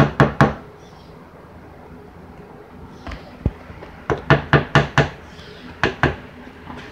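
A kitchen spatula being knocked against the rim of a tube cake pan to shake off chocolate cake batter. The knocks are sharp and come in quick clusters: three at the start, one with a dull thud about three seconds in, a run of five about four seconds in, and two more near the end.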